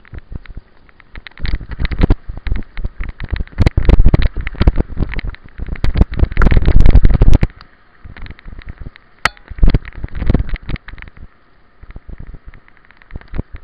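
Mountain bike riding fast down a rough dirt trail: a dense, rapid rattle and clatter of the bike over bumps and roots, with heavy wind buffeting on the microphone from about a second and a half in to about seven and a half seconds, after which the rattling goes on more quietly.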